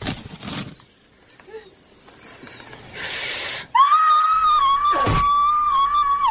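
A short burst of noise, then another about three seconds in, followed by a long high-pitched scream held steady for over two seconds. A sharp falling swoop cuts through the scream partway along.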